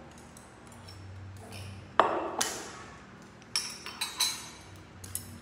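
A ceramic bowl set down on a wooden cutting board with one sharp knock about two seconds in, then three light clinks of a metal spoon against the bowl.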